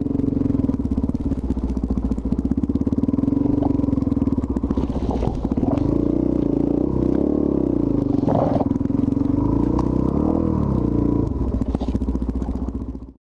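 Dual-sport motorcycle engine running steadily while the bike is ridden over a rough dirt trail, heard from the rider's seat. Its note wavers up and down as the throttle is worked partway through.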